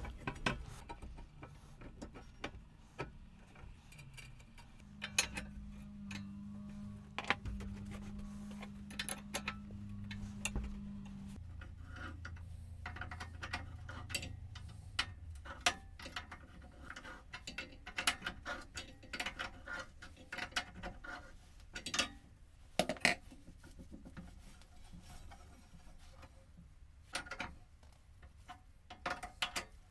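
Irregular metallic clicks, clinks and knocks from hands working a drive belt onto the cast-iron flywheel, axle and pulley of a treadle sewing machine base. A low steady hum sounds for several seconds in the first half.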